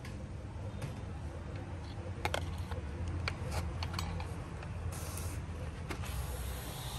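Scattered light clicks and taps from plastic containers being handled: a clear plastic tub and a spray bottle. Under them runs a steady low rumble, with a brief hiss about five seconds in and a steady hiss starting near the end.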